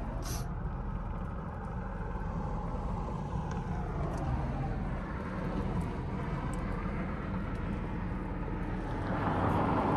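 Car cabin with the engine idling: a steady low rumble, a sharp click right at the start and a few faint ticks. Near the end a rushing noise swells up as traffic passes on the road outside.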